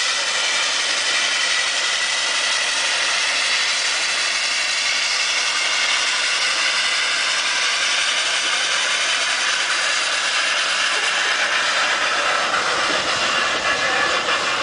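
Cog railway steam locomotive hissing steadily as it moves slowly past, pushing its passenger coach; a rapid series of beats comes in near the end.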